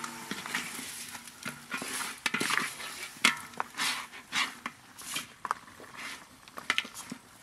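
A spatula stirring and scraping beef ribs around a large steaming wok, in irregular strokes over a sizzle.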